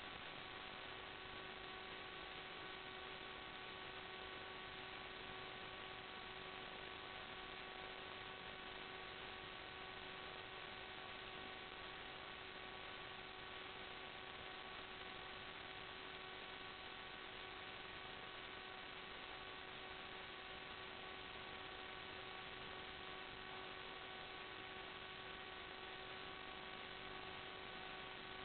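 Steady static hiss with a constant electrical hum, unchanging throughout: the noise on the audio channel of an analog FPV video recording.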